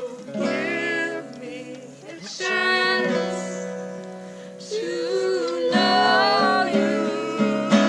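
A voice singing long, wavering held notes over acoustic guitar chords, the chords changing twice.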